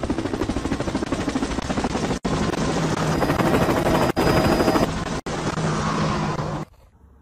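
A loud, rapid chopping rattle like a helicopter's rotor, a comic sound effect laid over a cat's fast head-shaking. It breaks off for an instant three times and stops suddenly near the end.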